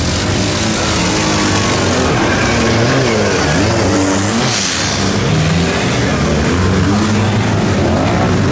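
Engines of off-road 4x4 trucks and ATVs revving hard as they churn through deep mud, several at once, their pitch rising and falling again and again.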